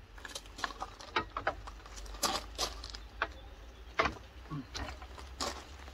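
Irregular light knocks and clicks of aluminium extrusion frame sections being handled and settled together.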